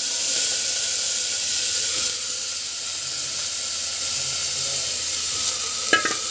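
Raw rice sizzling in hot oil with cumin seeds in an open pressure cooker: a steady, loud hiss as steam rises off the rice.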